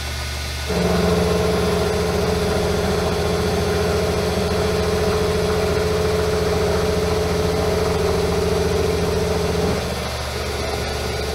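Small metal lathe running, turning down the journal of a hot-rolled steel model crankshaft held between centers. It makes a steady hum, and a louder, steadier tone comes in about a second in and drops away near the end.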